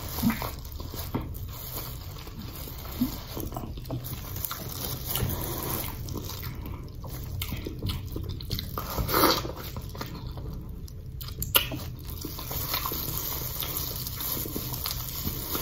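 Close-up wet chewing and lip-smacking of seafood-boil food, with scattered short clicks and a few sharp snaps, the sharpest about eleven and a half seconds in. Near the end the snapping comes from a snow crab leg being pulled apart by hand in plastic gloves.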